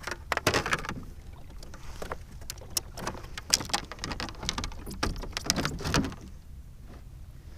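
Irregular clicks, knocks and rattles of fishing gear being handled on a kayak. They stop about six seconds in.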